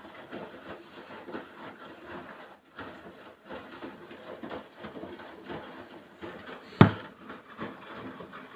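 Haier washing machine tumbling its drum during the rinse: laundry and water slosh in uneven swishes. One sharp knock about seven seconds in stands out above the rest.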